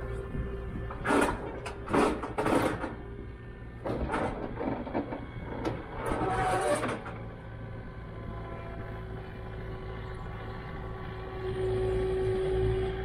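Bobcat T300 compact track loader's diesel engine running as the loader drives up onto a steel equipment trailer. Several short, loud rattling bursts come in the first seven seconds, and the engine note grows louder near the end.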